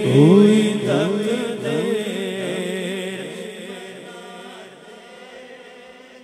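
Unaccompanied devotional singing of a naat in Urdu: a man's drawn-out, melismatic vocal phrase with rising glides that gradually fades away.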